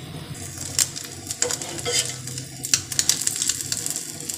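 Eggs sizzling in hot oil on a tawa. Sharp clicks and scrapes of a metal knife cutting the fried eggs into pieces against the pan come several times over the sizzle.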